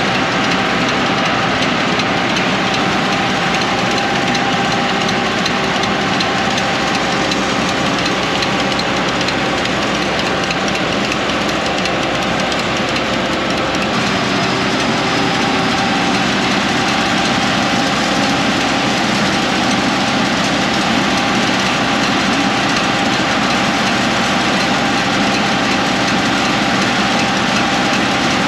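Tractor engine running steadily at a constant speed, with a heavy rush of noise over it.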